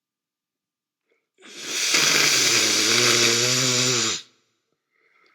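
A man's loud, drawn-out hissing breath with his voice in it, lasting almost three seconds. A low, steady vocal tone comes in about halfway through, and the sound cuts off sharply.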